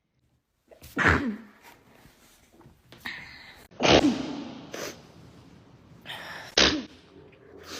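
Three sneezes into an elbow, a few seconds apart, each a sudden loud burst of breath and voice that falls away in pitch.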